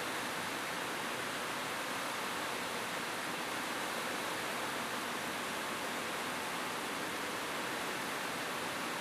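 Steady rain falling on a roof: an even hiss with no separate drops or thunder standing out.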